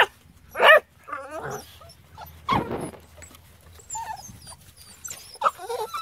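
Norwegian Elkhound puppies whining and yelping: a run of short, high-pitched cries that bend in pitch. A louder, sharper cry comes about two and a half seconds in, and a cluster of yelps comes near the end.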